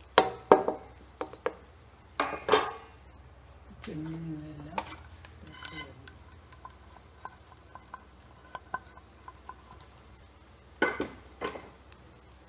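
Metal utensils clattering on a cooking pan: a spatula knocking and scraping in the pan and a steel bowl tipped against its rim, in several loud bursts with light taps in between.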